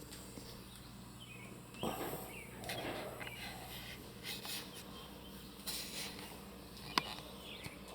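Small pet animals moving about in their cage: faint rustling and scuffling, with one sharp click about seven seconds in.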